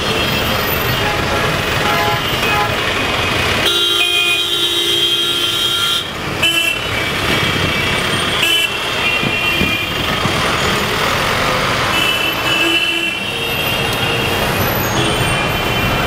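Busy city traffic with engines running close by and horns honking again and again: one long horn blast of about two seconds a few seconds in, then several shorter toots.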